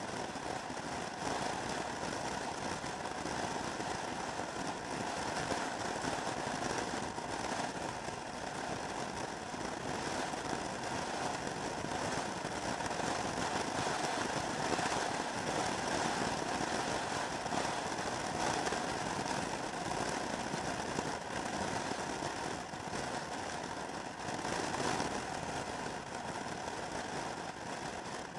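Motor scooter cruising at steady highway speed: a steady mix of engine drone and wind and road rush heard from the rider's seat, with no changes in pace.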